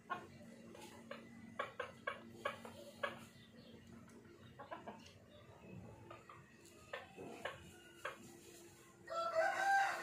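Bird calls: a run of short chirps and clicks, then one longer, louder wavering call near the end.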